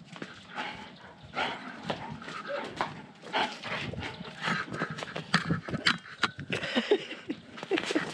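A dog close by, making a continuous run of short, irregular noises with a few brief higher-pitched sounds among them.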